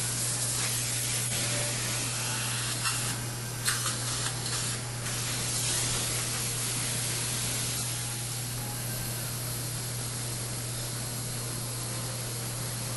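Dental suction hissing steadily at the surgical site over a constant low equipment hum, with a few short clicks of metal instruments about three to five seconds in.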